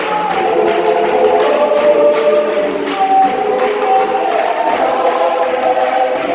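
A gospel choir singing in several-part harmony, with long held notes over a steady rhythmic beat.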